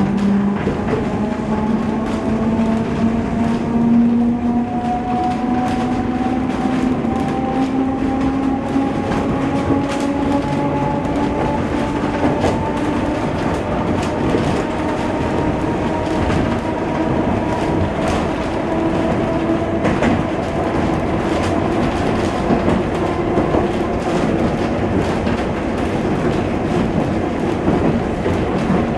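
Ride inside a moving Adelaide H class electric tram. The traction motor and gear whine rises in pitch as the tram gathers speed through the first half, then holds steady over the running rumble, with the wheels clicking over rail joints now and then.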